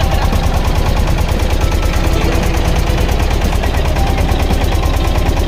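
Engine of a wooden motorboat running steadily under way, a fast, even chugging with a heavy low throb.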